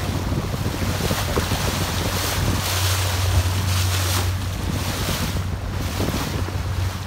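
Motorboat underway: a steady low engine drone under the rush of the wake and spray along the hull, with wind buffeting the microphone in gusts.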